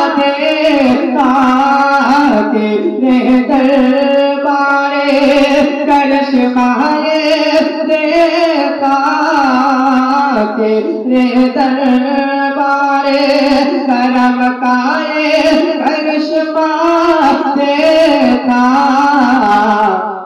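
A solo voice singing a naat, an Urdu devotional poem, in long, wavering melodic lines.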